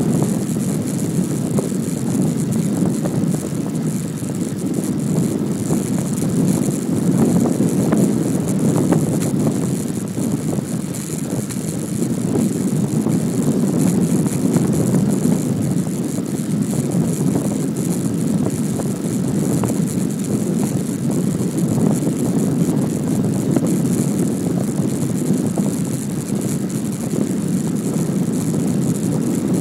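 Steady low rush of wind on the microphone mixed with the rolling tyre noise of a Brompton folding bicycle on asphalt, with a few faint clicks.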